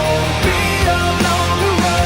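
Rock music: loud distorted guitars and drums with a singer's voice, the song's sung lines breaking off here for an instrumental stretch.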